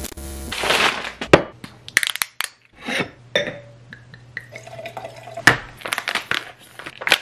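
A brief digital glitch noise, then a string of short kitchen sounds: glass clinks, white wine pouring into a wine glass, and a plastic pouch being torn open.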